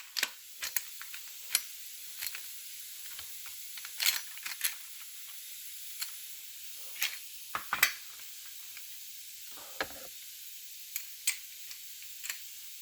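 Irregular sharp metallic clicks and knocks of Beretta A300 Outlander semi-automatic shotgun parts being handled and fitted during reassembly, over a steady hiss.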